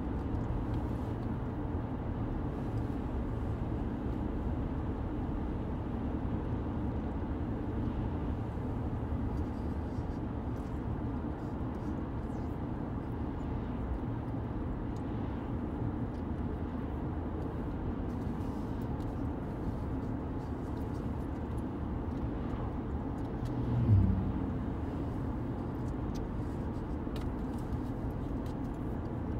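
Steady low rumble of road and engine noise inside the cabin of an Infiniti Q50 driving at highway speed. Near the end comes one brief, louder swell that drops in pitch.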